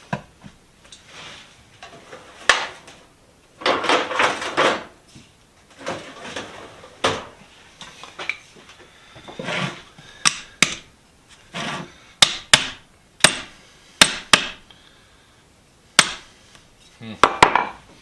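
Metal vise parts being knocked and clanked during disassembly: a string of sharp knocks, clustered mostly in the second half, with a few short scraping stretches between them.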